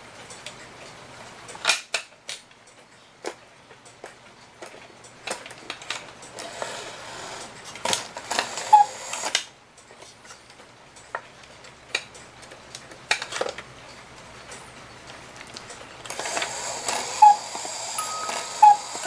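Scattered clicks and knocks of a wooden cuckoo clock case and its parts being handled as it is opened up. About sixteen seconds in, a steady whirr starts with a few plinked notes: the clock's 30-tooth music box beginning to play.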